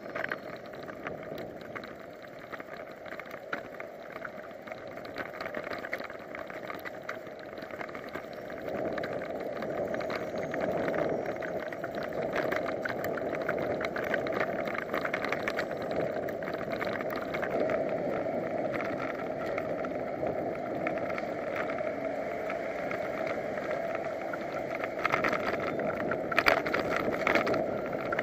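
Wind rushing over a bicycle-mounted action camera's microphone while riding, mixed with road noise, getting louder about nine seconds in. A few sharp rattles come near the end.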